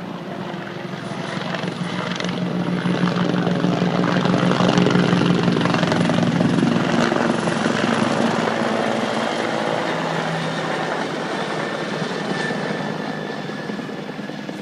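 Helicopter passing overhead, its rotor chop and engine growing louder to a peak about five seconds in, then slowly fading away.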